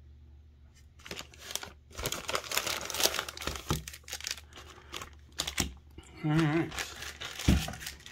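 Plastic poly mailer bag crinkling and rustling as hands dig through it and the packed items inside, with many small crackles. A short wavering hum about six seconds in and a single knock near the end.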